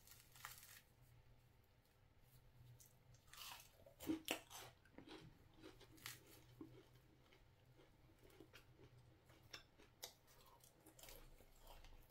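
Crunchy fried mandazi being broken apart by hand: faint crackles and crunches of the crisp crust, loudest about four seconds in.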